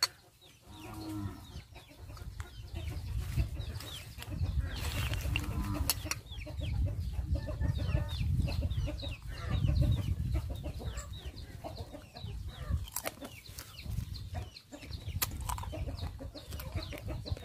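Farmyard fowl clucking, with many short falling chirps over a low rumble and a few sharp clicks.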